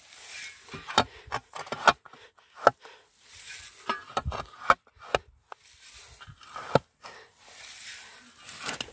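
Steel spade chopping and scraping into soil, about ten sharp, irregular strikes of the blade.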